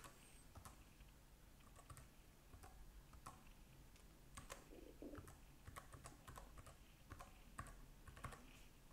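Faint typing on a computer keyboard: irregular keystrokes, a few a second, as an email address is typed in.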